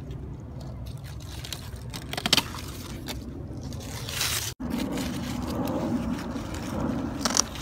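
Hand pruning shears cutting through zucchini leaf stalks: a crisp snip about two seconds in and another near the end. In between, the large leaves scrape and rustle, with a brief rush that cuts off suddenly midway, over a steady low rumble.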